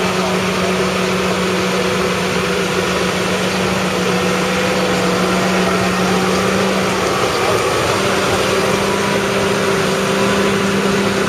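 John Deere 6215R's 6.8-litre six-cylinder diesel engine idling with a steady hum that falters briefly about seven seconds in.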